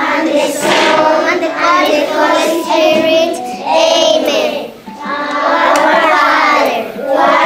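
Young children singing a song together in sung phrases with short breaks between them.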